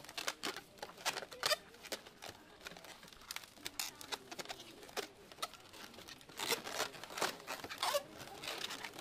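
Latex modelling balloons squeaking and rubbing as they are twisted and shaped by hand, in a string of short, irregular squeaks and scrapes, busiest about a second and a half in and again from about six and a half seconds.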